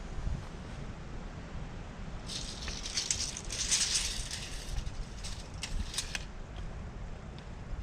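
Dry leaves and twigs rustling and crunching, with a few sharp snaps, from about two to six seconds in, over a steady low rumble.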